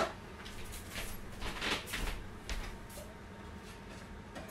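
Faint clicks and knocks from espresso equipment being handled on a portafilter machine, with a sharp click at the start and a short clatter about a second and a half in.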